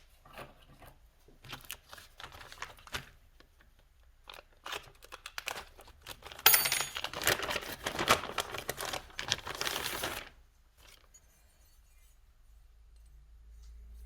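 A head gasket's packaging being opened: short rustles and crinkles, then a louder stretch of tearing and crinkling that starts sharply about six and a half seconds in and stops near ten seconds.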